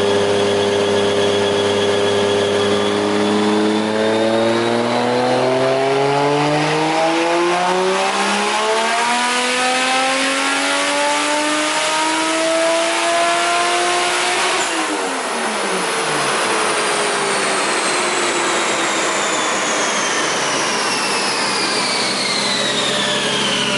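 Toyota 1JZ inline-six with a big single turbo, in a Lexus SC300, making a full-throttle pull on a chassis dyno: the revs climb steadily for about twelve seconds, then the throttle closes and the engine drops back to idle. A high whine falls slowly afterwards as the car coasts down on the rollers. The engine is running very rich at this stage of the tune.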